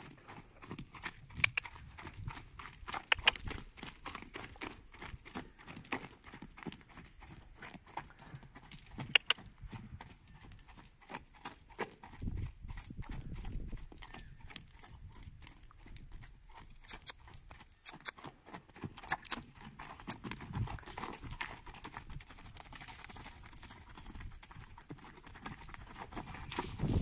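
Bay horse's hooves striking sand footing, a run of soft irregular thuds as she trots around the pen, cantering near the end.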